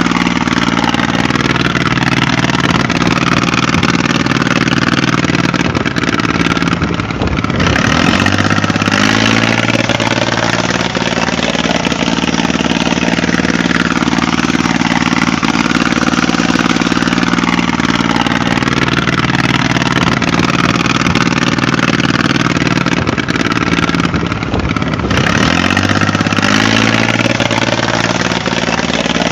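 An engine running steadily with a constant, even drone. Twice, about seven and twenty-four seconds in, its pitch dips and then rises again in the same pattern.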